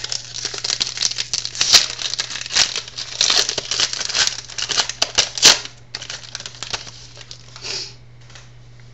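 Plastic trading-card pack wrapper crinkling as it is torn open and handled, with a few louder crackles, dying away about six seconds in.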